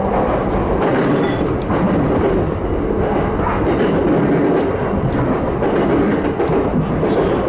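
Train running on the rails: a steady rumble with scattered light clicks.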